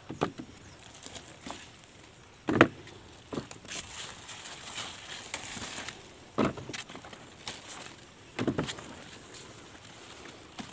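Cucumber vines and leaves rustling and brushing close against the phone as the plants are handled. Scattered knocks and thumps come at uneven intervals, the loudest about two and a half seconds in, over a faint steady high hiss.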